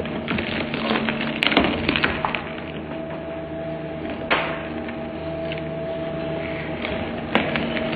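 Twin-shaft shredder chewing up a child's sandal: a steady motor hum under a run of cracks and crunches as the cutter discs tear the shoe apart, with a sharp crack about four seconds in.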